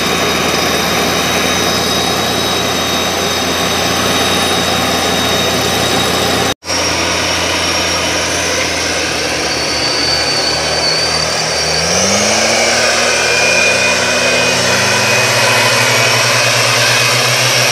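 Two-stroke engines of STIHL backpack mist blowers running steadily at high speed. There is a momentary dropout a third of the way in. In the second half the pitch climbs as an engine is throttled up, then holds at the higher speed.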